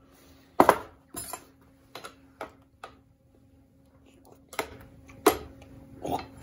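Kitchen handling noises: a plastic food-processor bowl lifted off its base and set down on the counter, then a metal spoon clinking and scraping in the bowl. These come as a series of separate knocks and clinks, the loudest about half a second in.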